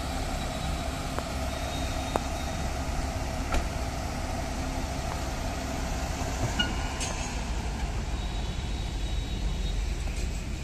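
Tata Super Ace light truck's 1.4-litre diesel engine idling steadily, a low rumble with a faint held hum above it. A few light clicks, one near the end as the cab door is opened.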